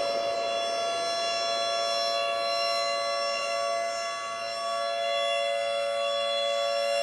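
Air raid siren sounding at a steady held pitch, a chord of two close tones with many overtones; its loudness sags slightly about four seconds in.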